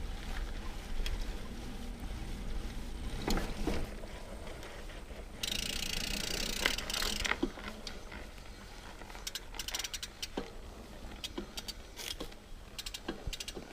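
Diamondback Mason Trail plus mountain bike on singletrack: tyre and trail rumble with knocks and rattles over bumps, a loud stretch of hiss about halfway, and rapid ratchet clicking from the rear freehub while coasting later on.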